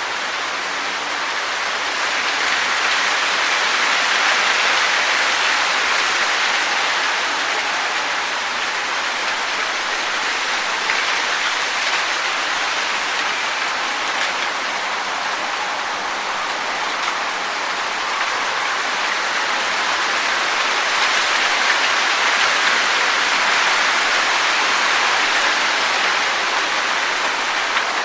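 Wind blowing through trees, the leaves rustling in a steady hiss that swells gently twice and eases off between gusts.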